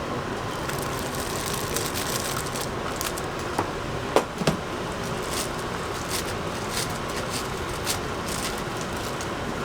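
Steady street noise with traffic, with a scattering of sharp clicks and knocks, the loudest pair about four seconds in.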